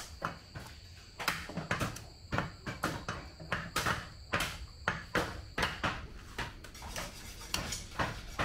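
Cleaver chopping mutton: a run of sharp, unevenly spaced strikes, about two to three a second.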